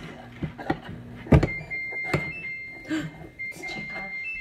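A metal spoon stirring thick icing in a glass bowl, with a few clinks and a loud knock about a second and a half in. From that knock on, a thin high steady tone with short breaks sounds under the stirring.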